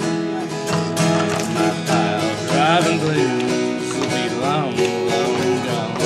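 Acoustic guitar strummed as song accompaniment, with a voice gliding up and down over it midway.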